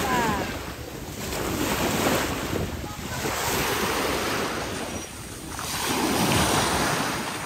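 Small sea waves breaking and washing up onto a sandy beach, the wash swelling and ebbing every two seconds or so.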